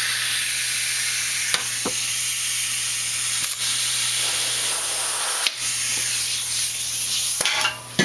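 Compressed air hissing steadily from an air blow gun nozzle pressed to the barb fitting of a screen door closer converted into a pneumatic cylinder, fed at about 150 psi. The hiss breaks off briefly three times, about two seconds apart, and stops near the end with a few light clicks.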